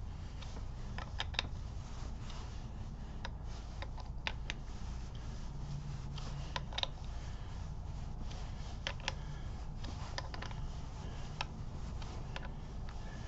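Small hand ratchet clicking in short, irregular runs as the clutch spring retainer bolts on a Harley big-twin clutch are snugged down a little at a time, evenly in a crisscross pattern, to compress the new diaphragm spring. A steady low hum runs underneath.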